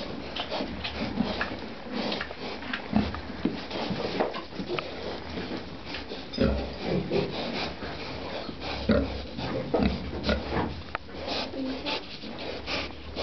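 Young domestic pigs grunting and snuffling at close range: short, irregular grunts, with scattered clicks and rustles throughout.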